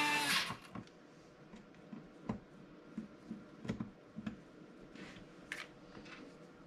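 A small cordless electric screwdriver's motor whine cuts off just after the start, followed by scattered light clicks and taps of screws, metal parts and the tool being handled.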